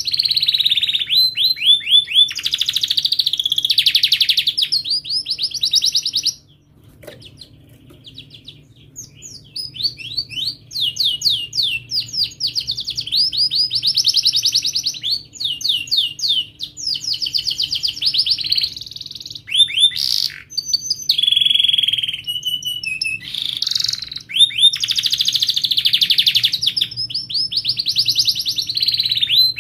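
Domestic canary singing in long, rapid rolling trills, phrase after phrase of fast repeated notes with chirps between. The song breaks off briefly about six seconds in and picks up again a few seconds later.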